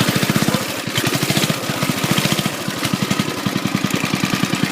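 Small single-cylinder engine of a racing lawn mower running steadily, an even rapid pulse of firing strokes.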